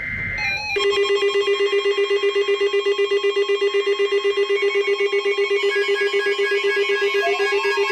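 Loud electronic alert tone: a buzzing tone that pulses about eight times a second. More tones join it, and a siren-like glide rising and falling joins in near the end. It opens with a brief high screech of digital data tones, like an EAS header burst, lasting about half a second.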